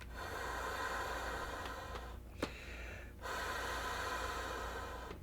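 Air sponson of a folding kayak being blown up by mouth: two long breaths into the valve, each about two seconds, with a pause for breath between them.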